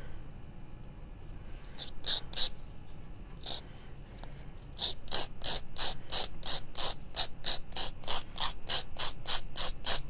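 Emery-board nail file scraping along the paper-covered edge of a small cutout piece, sanding off the excess paper. A few scattered strokes at first, then quick back-and-forth strokes of about four a second from about five seconds in.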